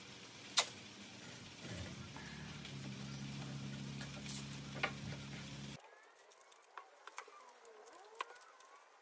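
Light clicks and knocks of pine legs being handled and fitted together on a workbench, with a sharp click about half a second in and another near the middle, over a steady low hum that cuts off abruptly about six seconds in. After that it is quieter, with a few faint clicks and short high chirps.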